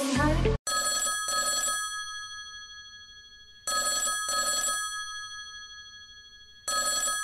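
A telephone bell ringing three times, about three seconds apart. Each ring is a double pulse, and the bell's tone fades away before the next ring.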